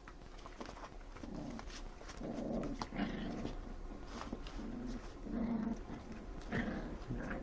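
Puppies play-fighting, giving short low growls that come about once a second from about a second in, with light clicks and scuffles of paws on a blanket.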